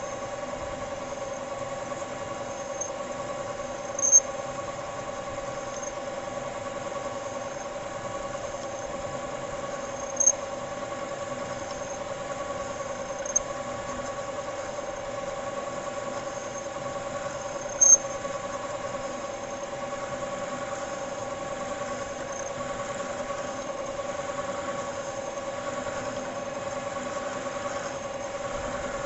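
Metal lathe running steadily with a constant humming whine while its tool turns a taper on a center punch blank, fed by the compound slide. Short high-pitched squeals cut in several times, a few seconds apart.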